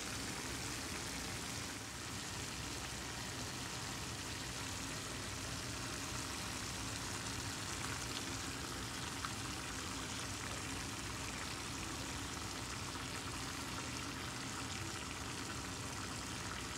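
Shrimp and chopped peppers sizzling in a pan, a steady even hiss.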